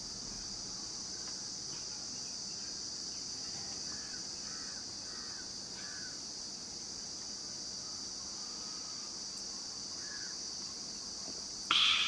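Steady high-pitched drone of insects such as crickets, with a few faint short sounds about halfway through and a burst of laughter near the end.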